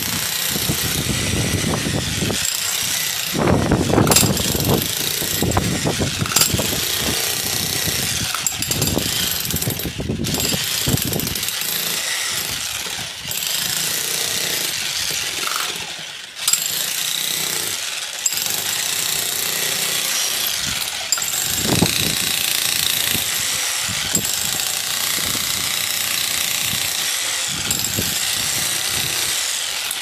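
Corded electric breaker hammering its chisel into the ground at a fence-post hole, running steadily with a couple of short pauses. Low rumbles of wind buffeting the microphone come and go under it.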